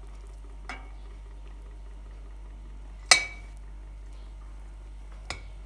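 Dishware clinking as it is handled in a kitchen: three sharp clinks, a faint one under a second in, the loudest, which rings briefly, about three seconds in, and a medium one near the end, over a steady low hum.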